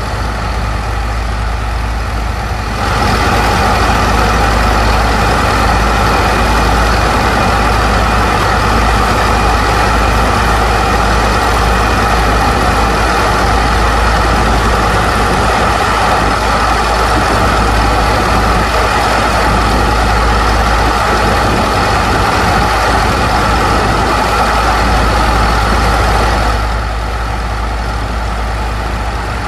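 Engines driving a sand barge's pumps run steadily under the rush of water and sand slurry from the pump hoses. The sound gets louder and brighter about three seconds in and drops back shortly before the end.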